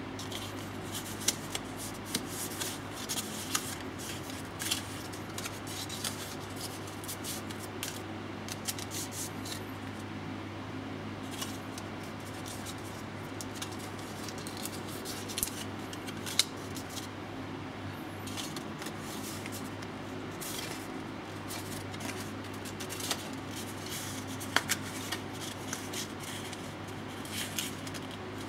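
A stiff paper cutout being handled and folded by hand. The paper rustles and creases in scattered sharp crinkles and ticks over a steady low hum.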